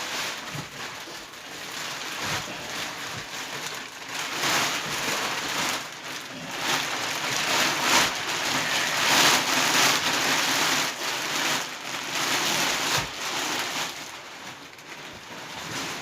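Plastic wrapping and mattress layers being handled and shifted by hand: dense, irregular rustling and crinkling, loudest in the middle and easing off near the end.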